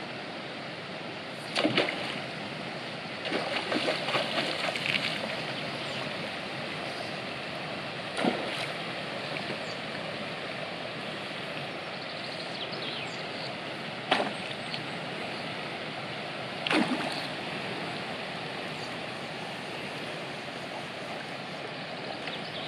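Steady rush of a small stream, broken by short splashes every few seconds, one longer run of small splashes early on: a trout splashing at the surface as it is played on a fly rod.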